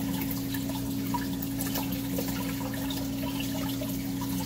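Water trickling and dripping in a running saltwater aquarium, with scattered faint splashes over a steady low hum.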